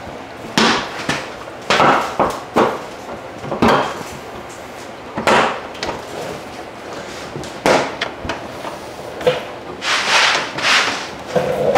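Irregular knocks and clicks with short rustles as a plastic aftermarket front bumper cover is handled and clipped onto a car's front end.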